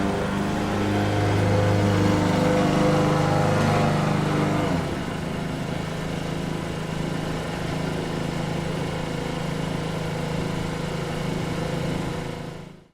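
Lawn mower engine running steadily. About five seconds in it drops a little in level and settles to an even running note, then fades out at the very end.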